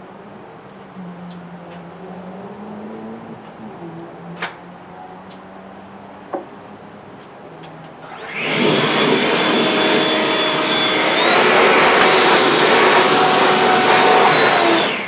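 A loud motor-driven machine starts about eight seconds in and runs with a steady whine that steps up in pitch partway through, then cuts off abruptly.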